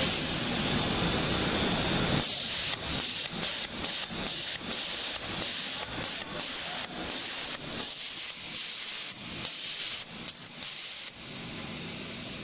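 CNC engraving spindle cutting lettering into a black plastic battery case, a loud steady hiss. From about two seconds in, the cutting noise keeps breaking off and coming back in many short strokes as the characters are cut. Near the end it settles to a quieter steady hiss.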